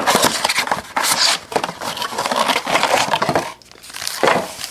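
A cardboard trading-card blaster box being opened and its stack of foil card packs pulled out: crackling cardboard and crinkling foil wrappers, a dense run of small clicks and rustles for about three and a half seconds, then a short rustle near the end.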